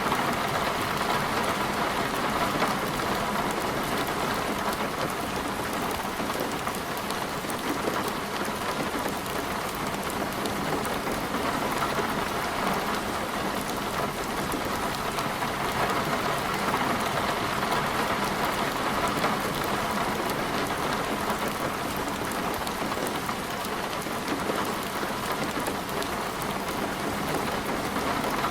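Rain falling steadily, a dense even patter of drops hitting a surface, with no letup.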